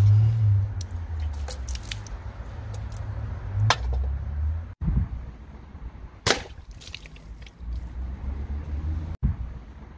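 BSA Lightning .22 break-barrel spring air rifle shooting at a drinks can: two sharp cracks, one a little past a third of the way in and one past halfway, with lighter clicks and taps earlier. A low rumble runs underneath.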